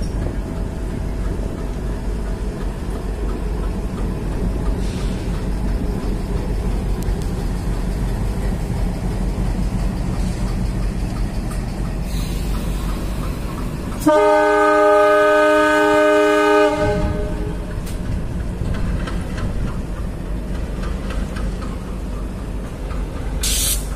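Diesel locomotives running with a steady low engine rumble. About two-thirds of the way through, a loud train horn sounds several tones together and holds steady for about three seconds.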